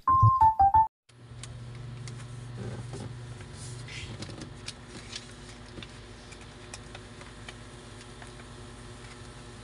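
A few piano notes of background music end about a second in. Then a large sheet of covering material is handled, rustling and crackling with light clicks over a steady low hum.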